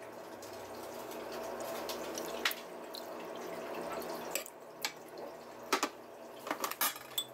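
Thick dark soy sauce pouring from a bottle into a metal ladle in a steady stream for about four seconds. Then the sauce is ladled over the duck, with several sharp clinks of the ladle.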